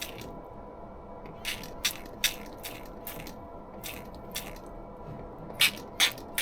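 Trigger spray bottle squirting leak-detection solution: a run of short hissing squirts in quick succession, several close together in the middle and two more near the end, over a steady background hum.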